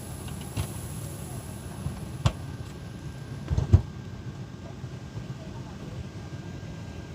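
Airliner cabin on the ground before takeoff: a steady low rumble of engines and ventilation, broken by a few sharp knocks, the loudest a quick cluster about three and a half seconds in.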